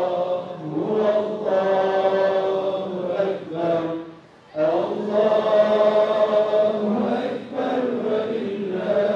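Islamic religious chanting: drawn-out, melodic held notes sung by voice, with a short break for breath about four seconds in.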